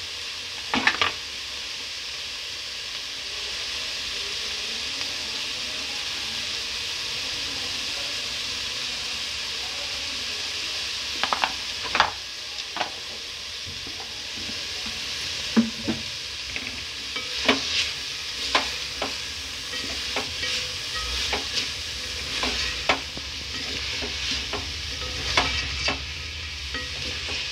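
Mixed vegetables sizzling as they sauté in a steel pot, a steady hiss, with a wooden spatula knocking and scraping against the pot as they are stirred, more often in the second half.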